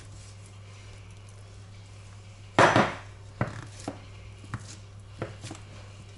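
Wooden spatula pressing and tapping a thick cooked curd-cheese mass down into a glass bowl: a loud scrape about two and a half seconds in, then a series of short knocks.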